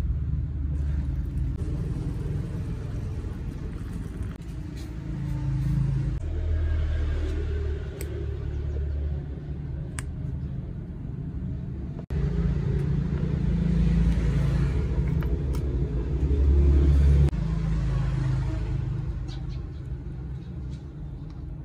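A steady low rumble with a few sharp clicks scattered through it.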